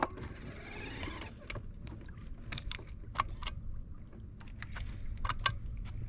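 Steady low rumble of a fishing boat on moving water, with scattered light clicks and knocks.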